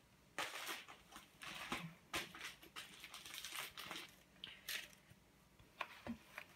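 Craft supplies in plastic sleeves and paper being handled in a cardboard box: irregular rustling and crinkling with a few light taps.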